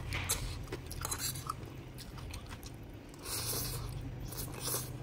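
Close-miked chewing and slurping of spicy instant noodles, with a few light clicks of a metal fork in the pot early on and a longer slurp of noodles about three and a half seconds in.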